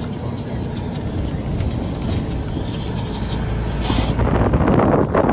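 Steady low rumble of a moving vehicle. About four seconds in, a louder rush of wind on the microphone builds up.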